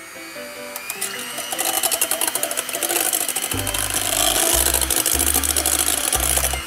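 Electric hand mixer beating egg whites in a stainless steel bowl for a meringue: a steady motor whir with dense rapid ticking. It grows louder about a second in and cuts off suddenly just before the end.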